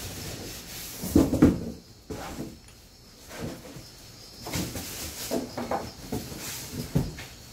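Greasy steel blades of an electric pruner being handled and wiped with a cloth rag: irregular rubbing and small clinks, a louder burst of handling about a second in, and a short knock near the end.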